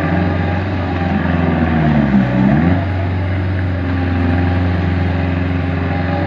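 Kubota diesel engine of a hydraulic-drive swamp buggy running steadily under load. Its pitch dips and comes back up about two seconds in.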